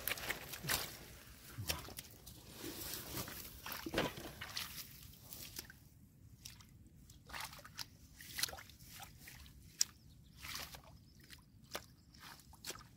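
Shallow muddy water in a flooded rice field sloshing and squelching in short, irregular splashes as it is worked through by hand. The splashes are busy at first and become sparser in the second half.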